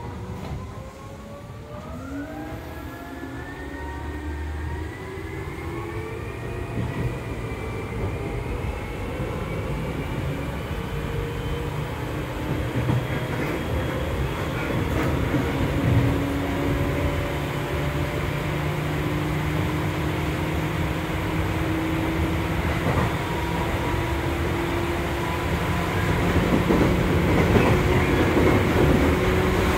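Interior running sound of a Seibu 2000 series electric train with field-chopper control, in a motor car: the traction motors' whine climbs in pitch as the train pulls away. At first it is layered with more rising tones from a Seibu 6000 series train with Hitachi GTO inverters departing alongside. The pitch then levels off while the running noise and rail-joint clicks grow louder with speed.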